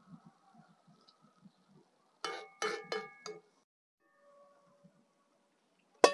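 Kitchen utensils knocked against metal cookware: four quick metallic clinks, each ringing on briefly, then a louder sharp knock right at the end.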